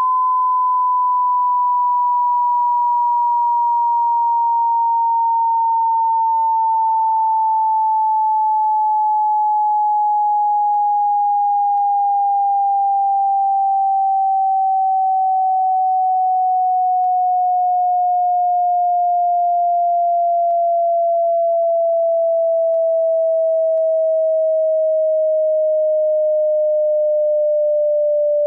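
A pure sine test tone sliding slowly and steadily down in pitch: a hearing-test frequency sweep running from high to low.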